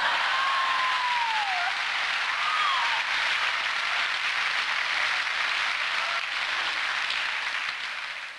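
Theatre audience applauding, starting abruptly and tailing off near the end, with a short falling call from the crowd in the first second or two.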